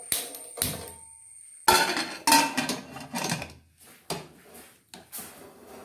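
Pressure cooker being handled on a gas stove: a string of sharp metallic knocks and clicks about a second apart as the lid and handles are set and closed.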